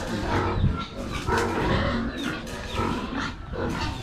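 Pigs squealing and grunting, several calls overlapping without a break.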